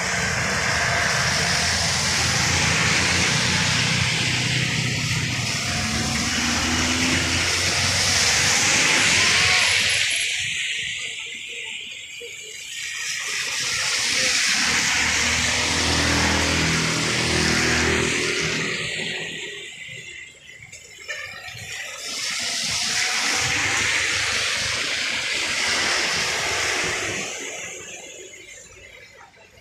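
Cars driving past one after another on a rain-soaked road, their tyres hissing through the water; each pass swells up with engine hum and fades away, about three times.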